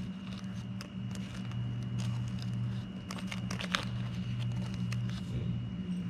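Blue painter's tape crinkling and crackling as it is handled and peeled away from freshly applied duct mastic, with a cluster of crackles about three to four seconds in, over a steady low hum.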